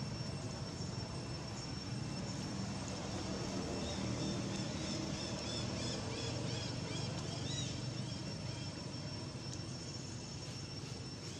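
Outdoor ambience: a steady low rumble like distant engine noise under a constant thin high insect tone. A string of short high chirps runs from about four to eight seconds in.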